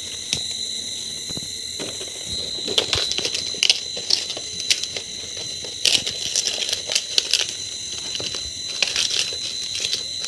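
Fresh banana leaves crackling and crinkling as hands fold and press them down over a pot to seal it, with irregular sharp crackles.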